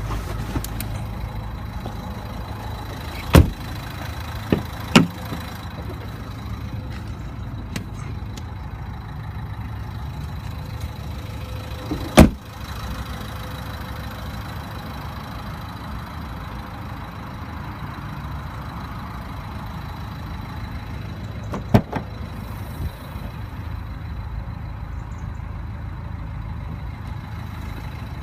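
A car engine idling steadily, broken by several sharp knocks or clunks, like doors or panels shutting, the loudest about twelve seconds in.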